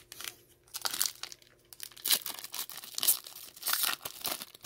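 Foil wrapper of a Pokémon Evolutions booster pack crinkling in the hands as it is handled, in many quick irregular crackles, loudest about two and three seconds in.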